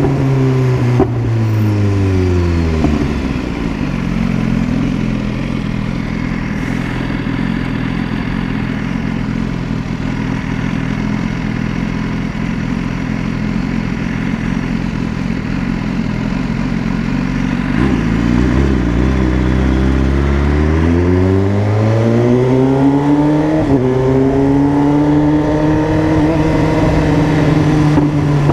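BMW S1000RR inline-four engine. The revs fall away over the first few seconds and run steady and low for a long stretch. About two-thirds of the way in they climb smoothly, then hold at higher revs.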